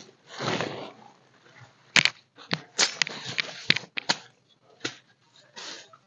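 A tent being pitched on forest ground: rustling, with half a dozen sharp, irregularly spaced knocks and clicks in the middle.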